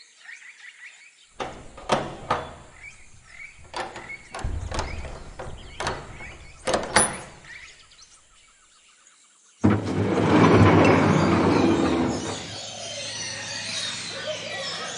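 A large hangar door knocking and squealing as it slides open, then, about ten seconds in, a sudden loud din of many birds calling at once.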